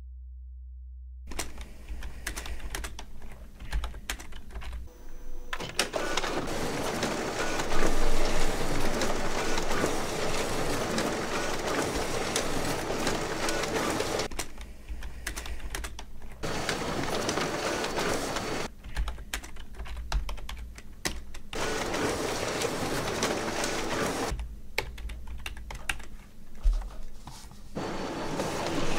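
Computer-keyboard typing that starts about a second in, in long stretches of dense, rapid clatter with sparser, quieter gaps between them. Near the end a printer runs with a steady whine as paper feeds through.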